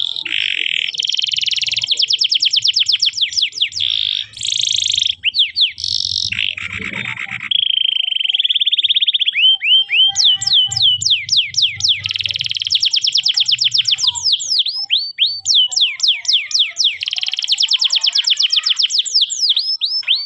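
Canary singing: long, fast trills of rapidly repeated high notes, broken by slower strings of separate, sweeping notes. The song cuts off suddenly at the end.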